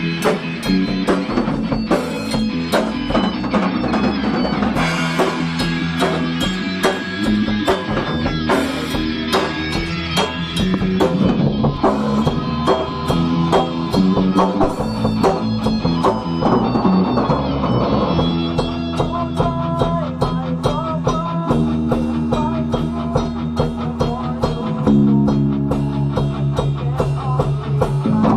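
A band playing a song live, with guitars over a drum kit keeping a steady beat.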